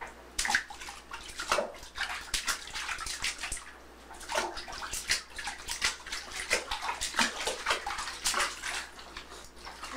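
Bath water splashing and sloshing in a tub as a small child plays in it, in a quick irregular series of splashes.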